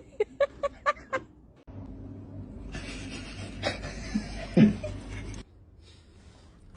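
A person laughing in a quick run of about five short bursts. After a sudden change, a steady noisy hiss with a brief pitched sound in it runs for about four seconds, then stops.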